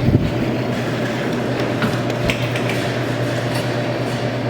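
Claw machine in play: a steady motor hum with a knock just at the start and a few light clicks from the mechanism.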